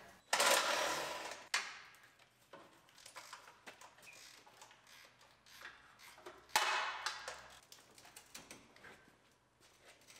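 Workshop noise from stripping a pickup's front end: a sudden loud clatter that dies away over about a second just after the start, a smaller knock a second later, light clicks and taps of tools and parts, then another loud clatter about two-thirds of the way through.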